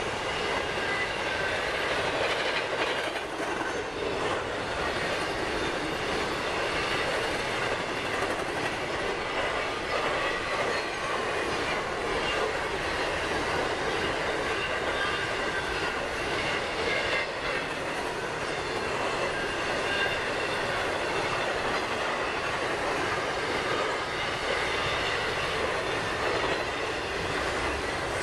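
A BNSF intermodal train of double-stack container and trailer cars rolling past, a steady rumble of wheels on rail with a thin high wheel squeal running under it as the cars round the sharp curve.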